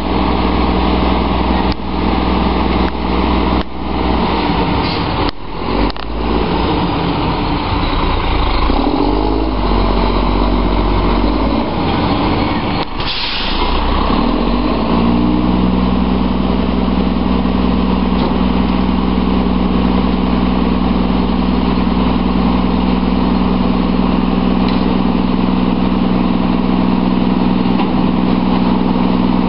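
Volvo WXLL front-loader garbage truck's diesel engine running at idle, with several sharp knocks and thuds in the first half as trash is loaded into the container on its forks. About halfway through, the engine speeds up and holds a steady, higher speed.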